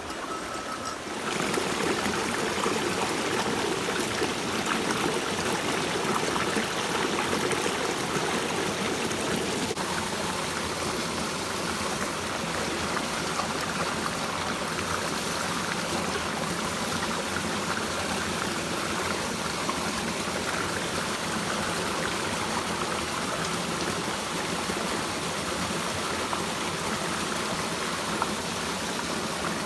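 Mountain stream water rushing steadily over rocks, louder from about a second in.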